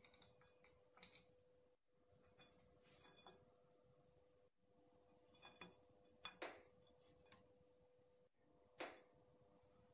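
Faint scrapes and light taps of a plastic spatula against a ceramic plate as dry, crumbly panjeeri is dished out, about five short strokes spread over the few seconds, over a faint steady hum.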